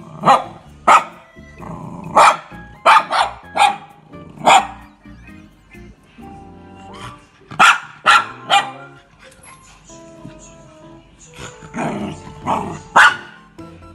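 Shiba Inu barking at its own reflection in a glass cabinet door, which it takes for an intruder: about a dozen sharp barks in quick clusters of two or three, with pauses between, the last cluster near the end. Music plays underneath.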